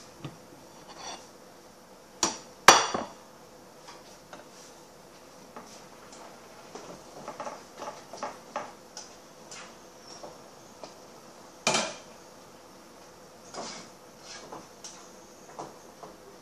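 Dishes and kitchenware knocking and clinking on a kitchen counter, including a plate being set down. There are two sharp knocks about two to three seconds in, the second the loudest and ringing briefly, another knock near the twelve-second mark, and lighter clicks in between.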